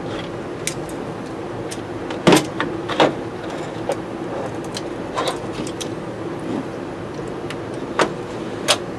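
Steady hum of a fan drawing off soldering fumes, with scattered sharp clicks and knocks of tools and wires being handled; the loudest knock comes a little over two seconds in, with another just under a second later.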